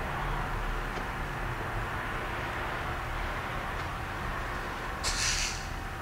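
Steady low background rumble, with a short hiss about five seconds in.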